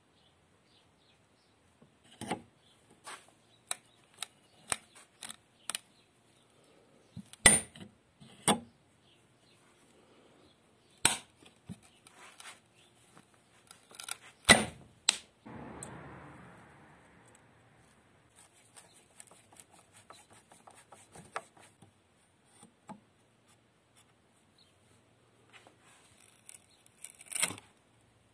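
Restored old nail puller worked against a wooden beam to pull screws: a string of sharp metal-on-wood clicks and knocks as its claws are set and levered, with a brief scraping noise after a loud knock about halfway through and another loud knock near the end.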